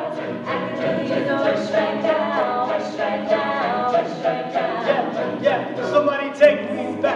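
Mixed-voice college a cappella group singing a pop mash-up live: a male lead over the group's sung backing harmonies, with a steady beat of crisp clicks.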